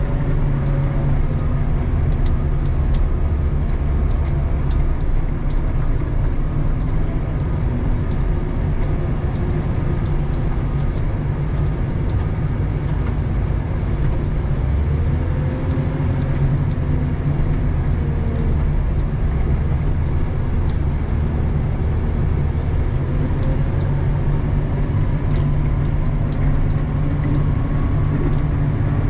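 Doosan DL250 wheel loader's diesel engine running steadily, heard from inside the cab, its pitch rising and falling briefly a few times.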